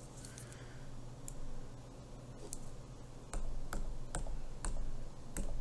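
Typing on a tablet's touchscreen on-screen keyboard: light, irregular taps, sparse at first and quicker from about three seconds in.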